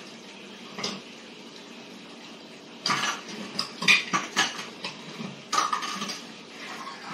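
Child's spoon scraping and knocking against a plastic plate while scooping food. One clink about a second in, then quick runs of clicks and scrapes about three seconds in and again near six seconds.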